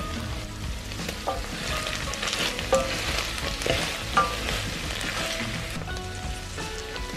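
Sliced sausage, diced bacon and onion sizzling in a hot stainless steel pot while a wooden spoon stirs them, with a few sharp knocks of the spoon against the pot. The hiss grows louder in the middle as the pieces are turned.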